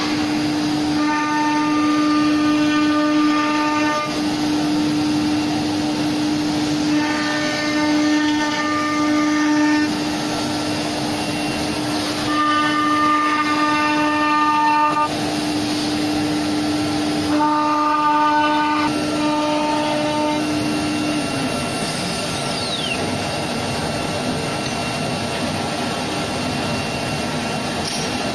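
CNC wood router machining a panel: a steady high spindle whine over machine noise, with four stretches of higher, whistle-like tones of a few seconds each. About 21 seconds in the whine falls in pitch as the spindle winds down.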